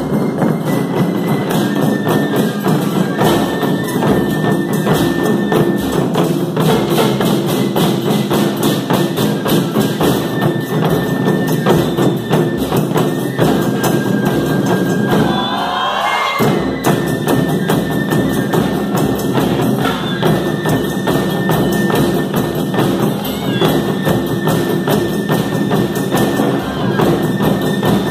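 Large ensemble of shoulder-slung, rope-laced barrel drums played live in a fast, driving unison rhythm of dense strokes. About sixteen seconds in, the drumming breaks off for a moment, then comes back in.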